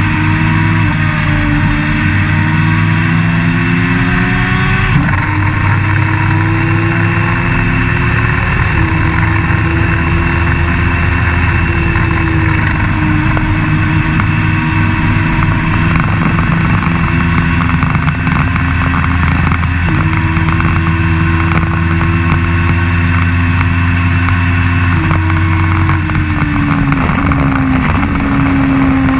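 Open-wheel race car's engine at racing speed, heard from on board, its pitch climbing and falling with sudden steps as the driver shifts gears, including a clear shift about five seconds in and several quick changes near the end.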